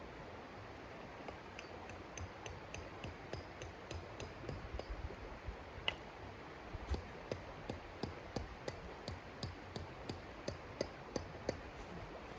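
A regular series of light knocks or taps, about three a second, with the louder strikes in the second half.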